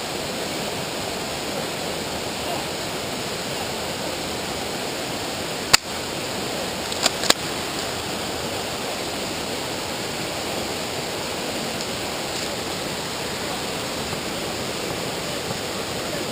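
Steady rushing of a river or stream. A sharp click cuts through it about six seconds in, followed by two lighter clicks a second later.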